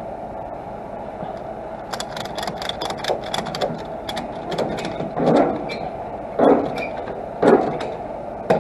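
Ratchet strap being tightened over a load: a run of rapid ratchet clicks, then several heavier ratcheting strokes about a second apart.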